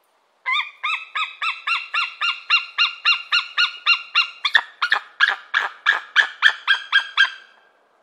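White-tailed eagle calling: a long run of about twenty short repeated notes, roughly three a second, starting about half a second in and stopping near the end. About halfway through the notes turn sharper and harsher.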